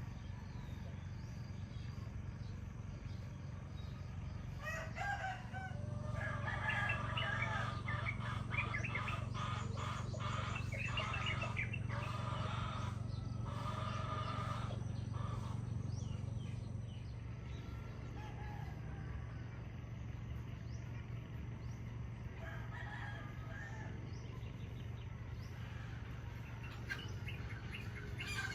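Roosters crowing, with the loudest run of calls between about five and sixteen seconds in and another crow near the end. A steady low hum runs underneath.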